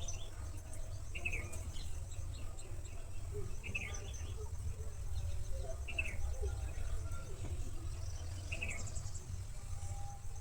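Birds chirping in the morning: one short call repeated about every two to three seconds, with fainter high calls in between, over a steady thin high tone and a low background rumble.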